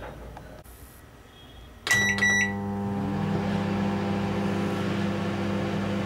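Black Beauty microwave oven started: a short high beep with a couple of clicks about two seconds in, then the oven running with a steady hum as it dry-roasts sesame seeds.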